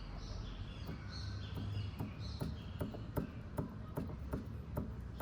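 Light knocks, a few a second at irregular spacing, from the worn steering axial rod (inner tie rod) of a Fiat Uno Mille: the rod knocks in its loose joint as it is moved, a sign of play in the joint. Birds chirp faintly in the background.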